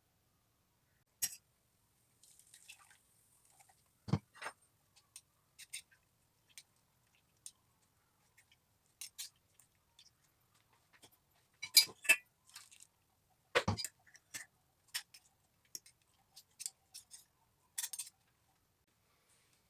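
Kitchen utensils and containers being handled and set down after blending: a scattered series of faint clicks, taps and clinks, with two heavier knocks, one about four seconds in and one near fourteen seconds.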